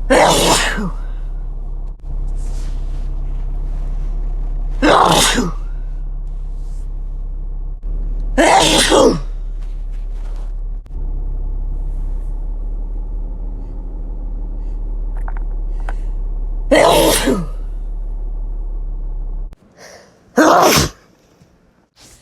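Five human sneezes a few seconds apart, each a short loud blast. Under the first four runs a steady low hum, which stops shortly before the last sneeze.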